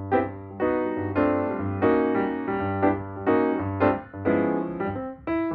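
Background piano music, a steady run of notes and chords struck about twice a second.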